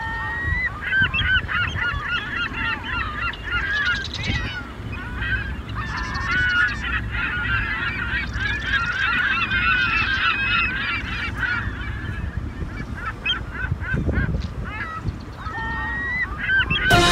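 A flock of waterbirds calling without pause, many short honking calls overlapping one another, over a low steady rumble. Music comes in right at the end.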